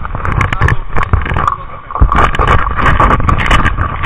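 Handling noise: rubbing, scraping and knocking on a camera and its mount while it is being repositioned, heard close on the microphone as an uneven rumble with many small knocks.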